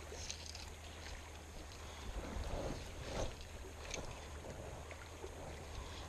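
Steady rush of a shallow creek running over a riffle, with wind rumbling on the microphone and a few brief soft scuffs.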